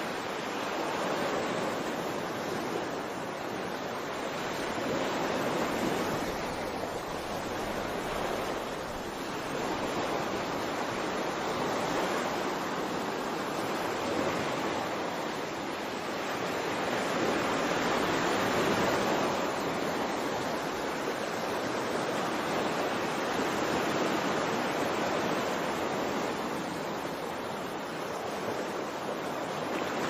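Ocean surf: waves washing in as a steady hiss that swells and eases about every six seconds.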